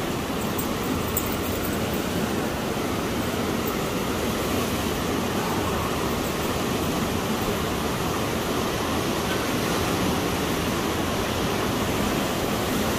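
Steady, unbroken rush of fast-flowing river water.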